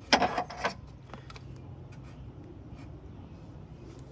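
Car parts being handled: a quick run of sharp scrapes and clicks in the first second, then only faint scattered ticks over a steady low hum.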